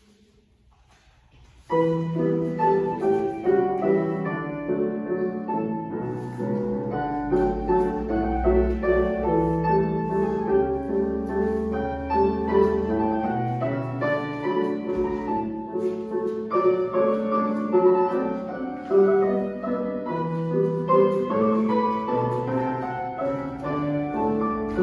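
Solo piano playing classical ballet-class accompaniment, starting suddenly about two seconds in after near silence.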